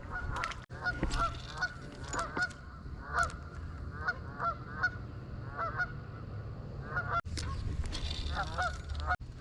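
A flock of geese honking over and over, short calls coming a few times a second, with low wind rumble underneath.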